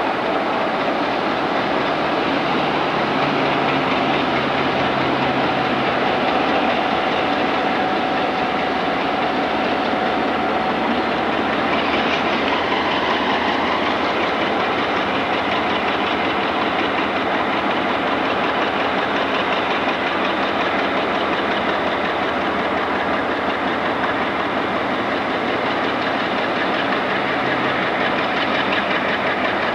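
Diesel freight locomotive engine running steadily as it pulls a train slowly past.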